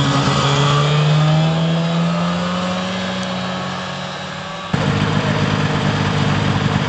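A 1989 Arctic Cat Jag 340 snowmobile's two-stroke twin engine running as the sled rides away, its steady note slowly fading. Near the end the sound changes abruptly to the engine idling close by, rougher and pulsing.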